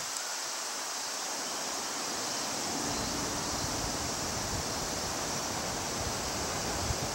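Steady outdoor ambience: an even hiss, with wind rumbling on the microphone from about three seconds in.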